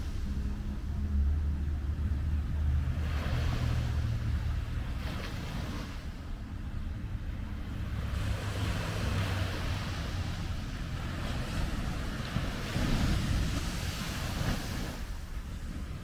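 Small ocean waves breaking and washing up a sandy beach, the surf hiss swelling and fading every few seconds. A steady low rumble runs underneath.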